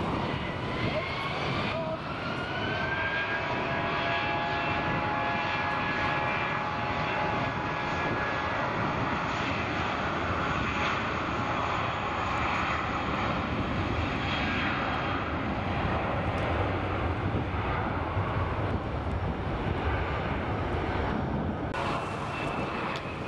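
Airbus A320 jet engines spooling up with a rising whine about two seconds in, then running steadily at high power as the airliner rolls down the runway, with wind noise on the microphone. Near the end the sound changes abruptly to the steadier whine of a Bombardier Challenger business jet on approach.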